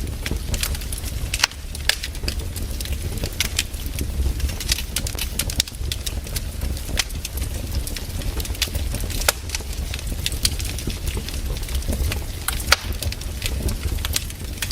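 Firewood burning, crackling with frequent irregular sharp pops and snaps over a steady low rumble.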